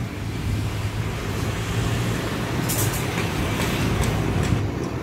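Steady low background hum and rumble, with a brief hiss about two and a half seconds in.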